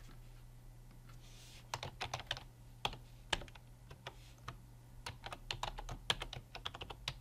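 Computer keyboard typing in short runs of keystrokes with brief pauses between them, over a faint steady low hum.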